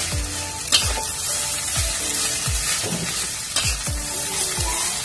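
Metal spatula scraping and turning fried rice in a hot metal wok, with a steady sizzle. The strokes come about twice a second, with one sharper clank of the spatula on the pan just under a second in.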